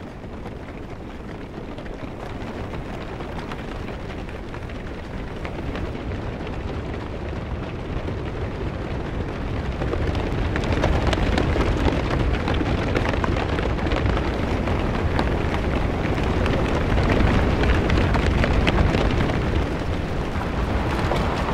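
Dense, loud clatter and rumble of a massed army of armoured soldiers on the move, swelling over the first ten seconds and then holding.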